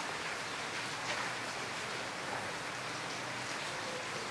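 Steady rain falling on wet stone paving.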